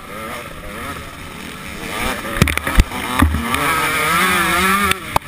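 KTM SX125 125cc single-cylinder two-stroke motocross engine at full throttle, heard from the rider's helmet, getting louder about two seconds in and climbing in revs through the second half. A few sharp knocks cut across it, with wind on the helmet microphone.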